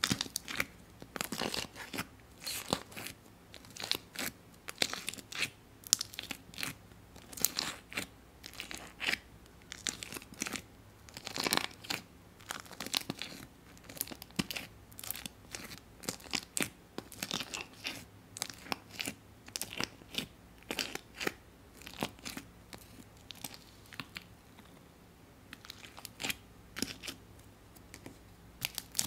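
White slime with blue pieces being poked and stirred in a plastic jar with a plastic spatula: irregular sticky crackles and small pops.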